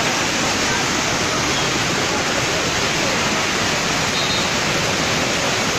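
Swollen floodwater rushing past in a loud, steady, unbroken rush.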